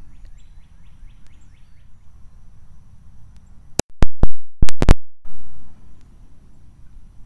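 Beretta 21A2 pistol fired in a rapid string of about five very loud shots within roughly a second, about four seconds in, with the hammer cocked for a light single-action trigger pull.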